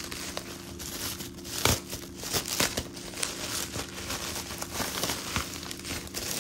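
Packaging being handled and opened: crinkling and rustling with scattered clicks, the loudest a sharp tap at just under two seconds in.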